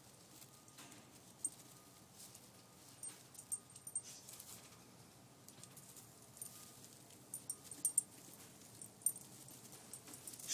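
Faint rustling and crackling of dry hay bedding as 13-day-old Californian rabbit kits shift and climb over one another in their nest box. The crackles come at irregular moments, a few of them louder ticks.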